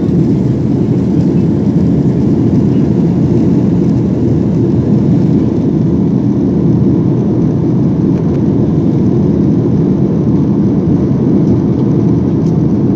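Steady cabin noise inside a Boeing 737-800 in flight: the drone of its CFM56 turbofan engines and the rush of air past the fuselage, heaviest in the low range.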